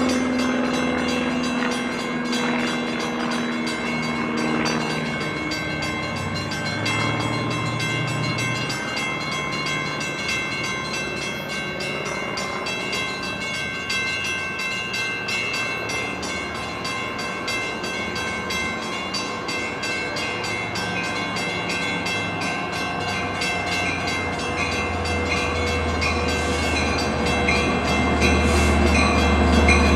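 Long Island Rail Road train running at a station, a steady mix of motor whine and wheel noise that grows louder over the last few seconds.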